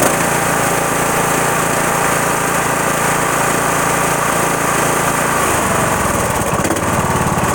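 An engine running steadily, a motor that is running badly; its low rumble shifts briefly about six seconds in.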